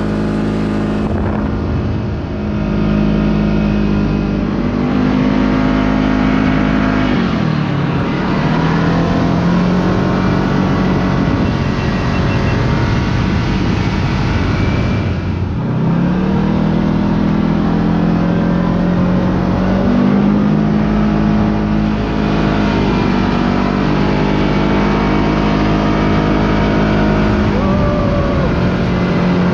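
Kawasaki Teryx KRX side-by-side engine running steadily under way, its pitch dropping twice as the throttle eases, about seven and fifteen seconds in, then rising again.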